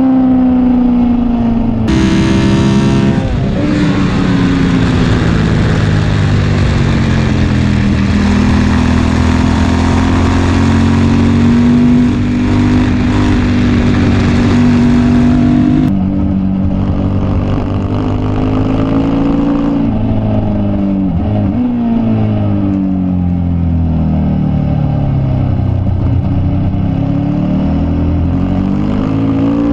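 Race motorcycle's engine heard onboard at speed, its note repeatedly climbing and dropping as it is shifted up and down through the gears, with wind rush over the machine.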